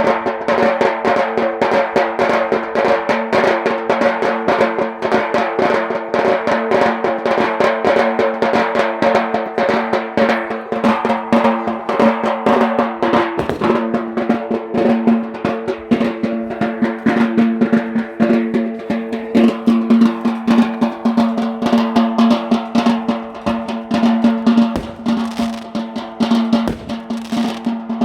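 Fast, unbroken drumming for the Yemeni bara' dance, with dense rolls of quick strokes. A steady held tone runs underneath throughout.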